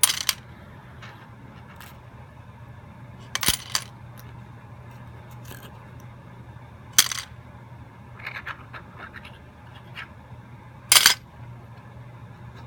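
Small metal objects (bolts, nails, paper clips, safety pins, a key, a penny) being dropped one at a time into a box. Each lands with a sharp metallic clink, a few seconds apart at an uneven pace, over a steady low hum.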